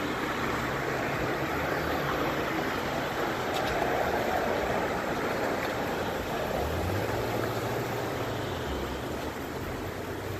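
Steady road traffic noise from cars passing on the street, with a low engine hum from a passing vehicle rising in the second half.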